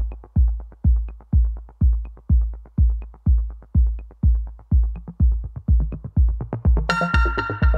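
Electronic dance music with a steady heavy kick drum, about two beats a second; bright synth chords come in near the end.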